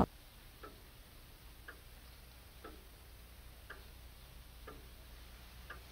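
Faint clock ticking, about one tick a second, six ticks in all.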